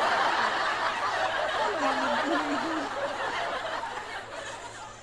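Two women laughing, breathy and continuous, dying away near the end.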